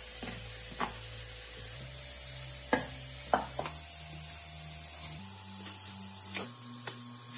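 Slow background music of sustained low notes that step up in pitch every second or two, over a steady hiss, with a few light knocks and rubbing from hands mixing food in a plastic basin.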